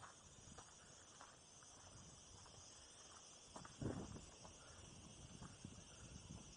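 Quiet: faint footsteps scuffing on dry sandy, gravelly ground, with one louder crunch about four seconds in, over a steady faint high hiss.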